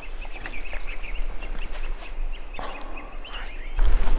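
Small birds chirping, many short calls, with a thin, very high whistle held through the middle. About three and a half seconds in, loud rubbing and bumping as jacket fabric brushes the microphone.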